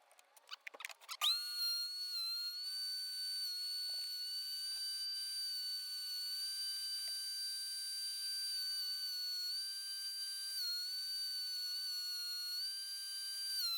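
DeWalt 735 benchtop thickness planer switched on about a second in, its motor and cutterhead then running with a steady high-pitched whine that dips briefly in pitch a few times.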